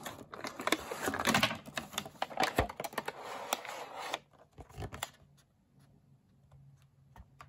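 Clear plastic blister packaging crackling and clicking as it is worked out of a cardboard box, dense for about four seconds. Then it goes much quieter, with only a few light taps as the empty box is handled.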